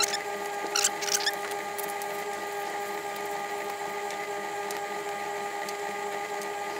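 A steady electronic drone of several held tones, the whirring sound effect laid over fast-forwarded footage. A few faint clicks come about a second in.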